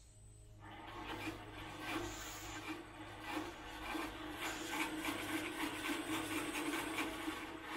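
1940s Delta bandsaw running on a three-phase induction motor driven by a variable frequency drive: a steady hum with a rough rubbing, scraping noise from the moving wheels and blade. It grows louder over the first couple of seconds as the speed knob on the drive is turned up.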